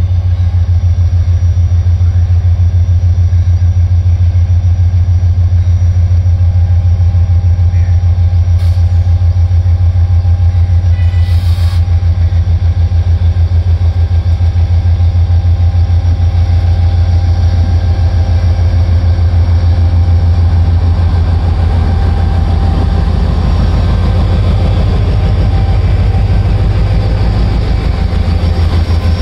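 Diesel locomotive engine running with a steady low drone, with a brief click and a short hiss partway through.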